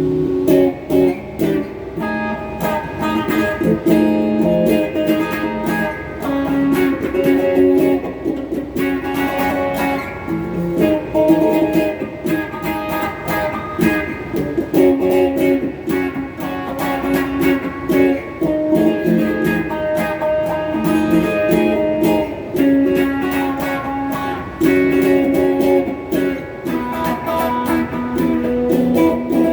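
Donner Q1 HSS strat-style electric guitar played through a Crate GX30M amp, with a phaser and a Klon-clone overdrive pedal in the chain: strummed and picked chords that change about every two seconds, in a bluesy style.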